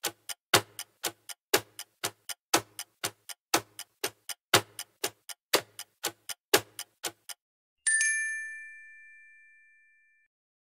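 Ticking-clock countdown sound effect: about four ticks a second, alternating louder and softer, that stop about seven seconds in. A single bright bell ding follows just under a second later and rings out over about two seconds, marking time up.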